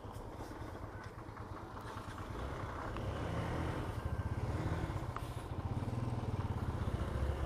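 Hero XPulse motorcycle engine running on the move, growing louder from about two seconds in as it pulls harder.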